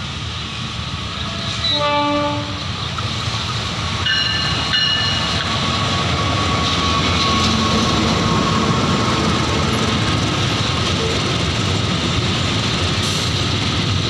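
CC 206 diesel-electric locomotive sounding its horn, one blast of about a second two seconds in, then two short higher tones about four seconds in. The locomotive and its container wagons then run past close by with a loud steady rumble.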